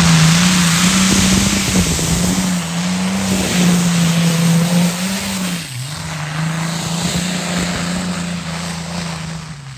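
Modified pulling tractor's engine running flat out as it drags the weight sled down the track: a loud, steady, high drone that dips briefly about six seconds in and fades near the end.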